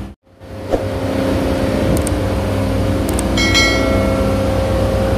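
Steady drone of running York air-cooled chillers, their compressors and condenser fans humming with a steady mid-pitched tone, after a brief dropout near the start.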